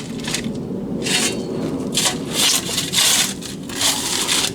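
Shovels scraping and digging into soil, a series of repeated scraping strokes while the ground is being levelled for a track bed.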